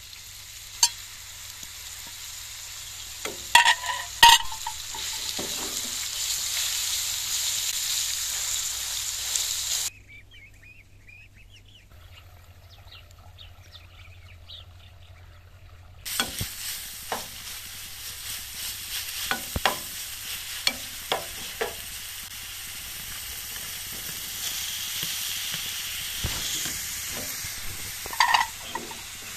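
Minced meat and onions frying in hot oil in a nonstick pan: a steady sizzle, with a metal spoon scraping and knocking against the pan as the meat is pushed in and stirred. The frying stops for about six seconds in the middle, leaving only faint chirping, then green beans and meat sizzle again under the spoon's clicks and scrapes.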